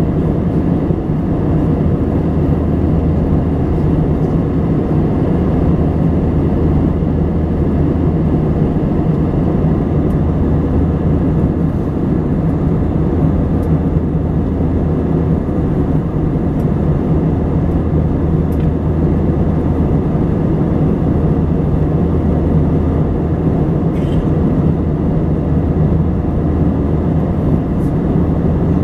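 Airbus A320 passenger cabin noise in flight: a steady low engine drone mixed with rushing airflow, heard inside the cabin, unchanging throughout.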